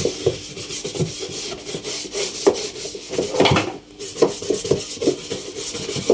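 A stiff brush scrubbing a dirty washing-machine part in quick back-and-forth strokes, with a short pause a little before four seconds in.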